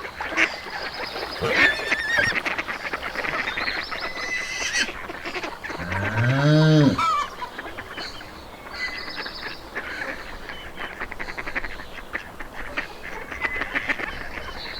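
Farm animals in the morning: a busy mix of farmyard bird calls and chirping throughout. About six seconds in, one long, low call rises and falls over about a second and is the loudest sound.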